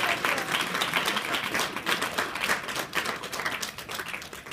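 Audience applauding, many hands clapping at once; the clapping thins out and fades near the end.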